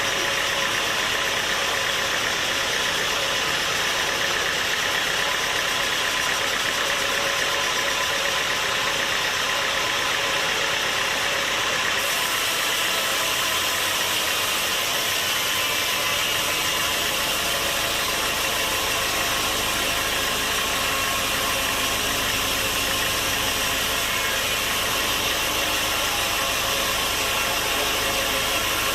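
Sawmill machinery running with a loud, steady mechanical noise that does not let up.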